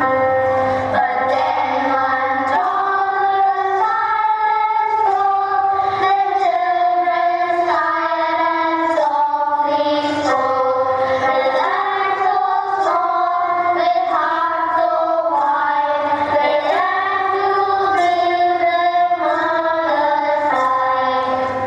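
A song: a sung melody over musical accompaniment, moving from note to note, each held about half a second to a second.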